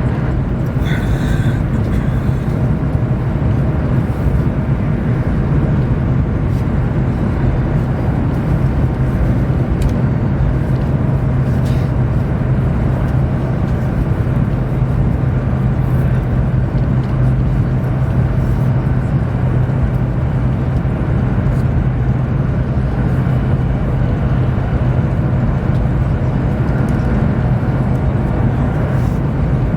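Cabin noise of a Chinese high-speed bullet train running at speed: a steady low rumble with a constant hum, and a couple of faint ticks.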